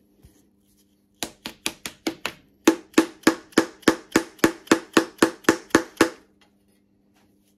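A quick series of sharp taps, about five a second for some five seconds, with a short break after the first six. It is a piston being tapped down through a homemade band-type ring compressor into the cylinder bore of an engine block, driving the compressed rings into the bore.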